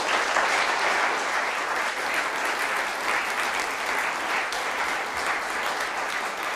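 Studio audience applauding steadily as the guest comes on.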